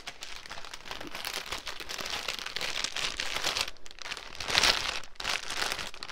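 Packaging crinkling and rustling as a cross-stitch kit's thread palette is pushed back into it, with a louder flurry a little past halfway and two brief let-ups.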